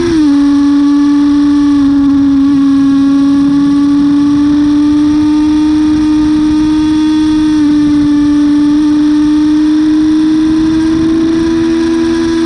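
Yamaha YZF-R6's inline-four engine under throttle, shifting from second to third gear at the start with a sudden drop in pitch. The engine note then climbs slowly and steadily through third, over wind noise.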